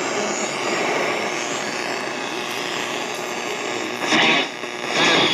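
GE Super Radio 7-2880B just switched on, a steady hiss of AM static from its speaker as the dial is tuned between stations, with two brief louder bursts about four and five seconds in.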